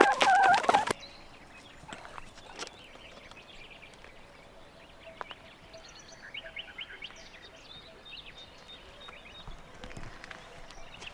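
Small birds chirping on and off over quiet outdoor ambience, with a few faint knocks. A louder mixed sound at the start stops abruptly about a second in.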